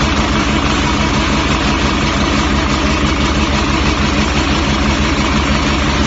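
The engine of a HAMAC concrete mixer pump running steadily, heard close to its open engine compartment.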